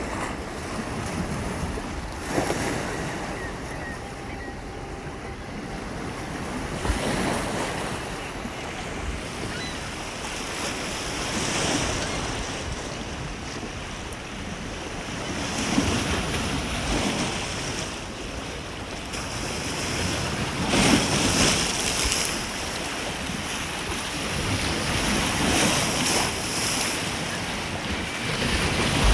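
Small waves washing in and breaking on a rocky, pebbly shore, swelling about every four to five seconds, with wind buffeting the microphone.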